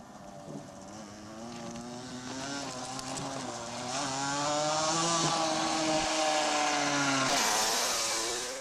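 Small motorcycle engine running as the bike rides toward the microphone, growing steadily louder with a slightly wavering pitch; the sound cuts off abruptly near the end.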